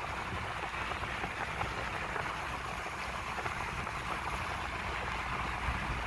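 Steady hiss of car tyres on a rain-soaked road, with a low road rumble underneath, heard from inside the moving car.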